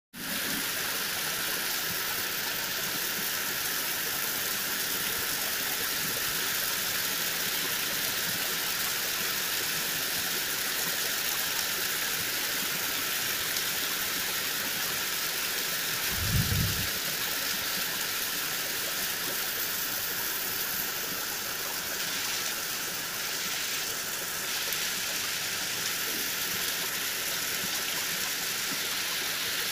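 Heavy rain falling steadily, an even hiss of downpour on leaves and ground. A brief low thump sounds about halfway through.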